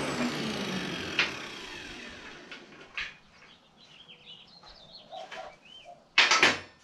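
A power tool winding down after being switched off, its whine falling away over the first two seconds. Steel suspension parts clank on the metal fabrication table a couple of times, loudest in a short clatter near the end, with birds chirping in between.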